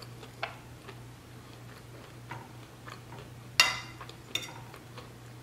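Close-miked eating: small wet mouth clicks while chewing, and one sharp clink of a metal fork against the plate about three and a half seconds in. A steady low hum runs underneath.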